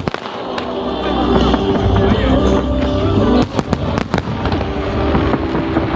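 Fireworks going off over music played for the show: one sharp bang right at the start and a quick cluster of three or four bangs about three and a half seconds in, with a low rumble between them.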